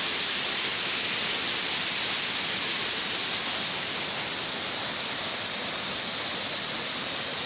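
Waterfall rushing steadily, water pouring over rocks and splashing into a pool in an even, unbroken rush.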